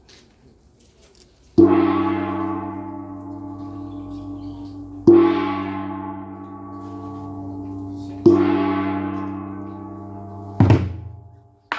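A large gong struck three times, about three seconds apart, each stroke ringing on and slowly fading. Near the end a sharp hit cuts the ringing short, and another short strike follows.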